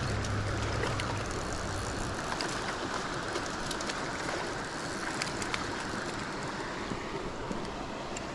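Steady rush of a flowing mountain creek, with a low rumble in the first two seconds and a few faint clicks.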